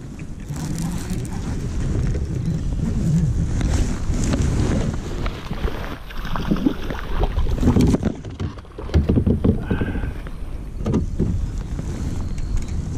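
A hooked bass thrashing and splashing at the water's surface beside a kayak during the fight, in irregular bursts mostly in the second half, over steady wind and handling noise on the microphone.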